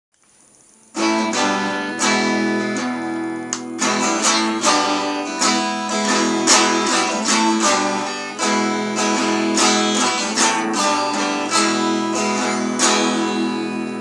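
Guitar strummed in steady, rhythmic chords, starting about a second in.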